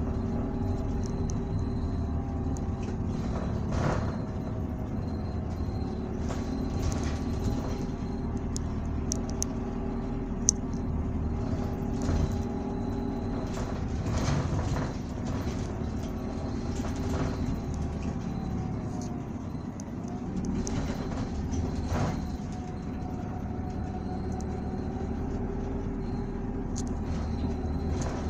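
Isuzu Erga city bus running, heard from inside the cabin: a steady diesel engine drone that sags about twenty seconds in and then climbs again as the bus pulls away. Short rattles and knocks from the body come and go, with one sharp click about ten seconds in.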